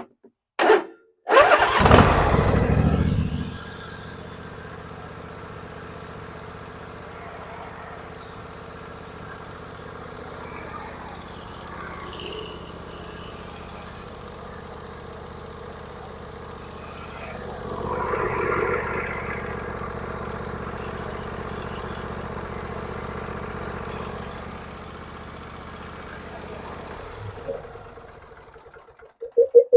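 Lawnmower's four-stroke engine cranking and starting about a second and a half in, then running steadily, louder for a moment past the middle, and shut off near the end. It is run briefly after an oil change to circulate the fresh oil and check for leaks.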